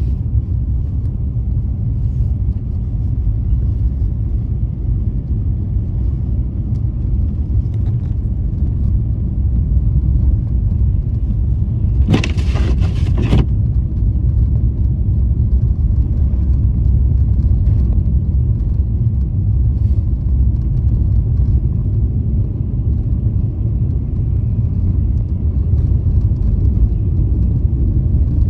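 Steady low rumble of a car driving on snowy roads: engine and tyre noise. About twelve seconds in there is a loud hiss lasting roughly a second and a half.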